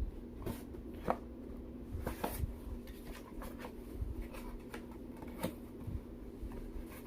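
Packaging handled and opened by hand: scattered light clicks, taps and rustles at irregular intervals, over a faint steady hum.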